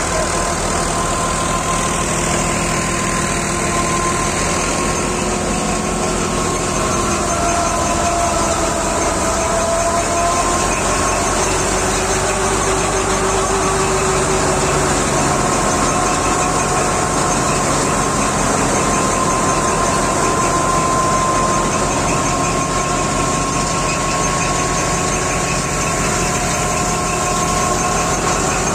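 A New Holland Ghazi diesel tractor runs steadily under load, belt-driving a wheat thresher whose spinning drum and pulleys add a steady whine and churning rattle as wheat is fed in.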